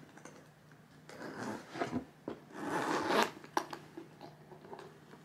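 Metal zip of a Louis Vuitton Alma BB handbag being worked: a couple of short rasps, then a longer, louder one about three seconds in, followed by a few light clicks.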